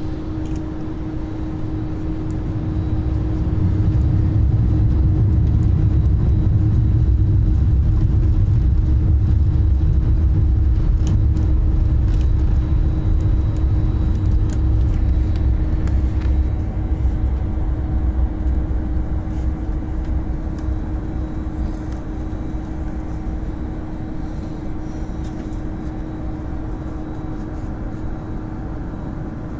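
Jet airliner cabin noise while taxiing: a low engine rumble swells about three seconds in, holds, then eases off after about fifteen seconds, over a steady hum.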